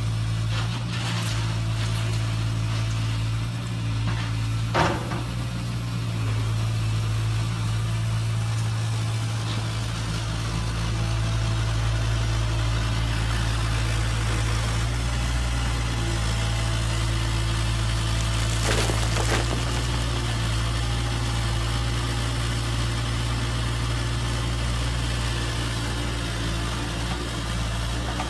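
Radio-controlled model excavator and dump truck running: a steady low engine-like hum, broken twice by a short clatter.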